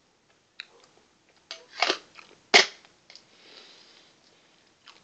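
Hard candy-shell speckled egg, a jawbreaker-like sweet, being bitten and crunched close to the microphone. There are several sharp cracks, the loudest about two and a half seconds in.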